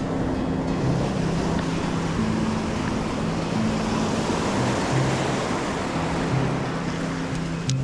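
Ocean surf washing onto a beach in a steady rush, with background music's low held notes playing over it.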